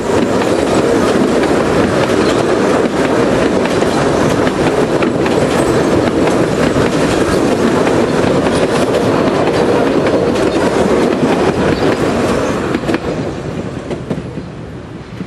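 Wooden open carriages of a narrow-gauge steam train rolling past at close range, steel wheels clattering over the rail joints. The sound fades near the end as the last carriage goes by.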